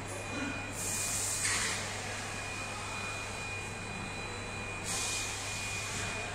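Automatic fabric spreading machine running: a steady motor hum with a thin high whine, and two stretches of louder hissing, about a second in and again near the end.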